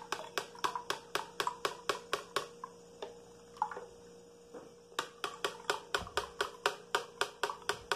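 Quiet background music: a steady ticking beat of about five clicks a second over a held note. The ticking drops out for about two seconds in the middle, then resumes.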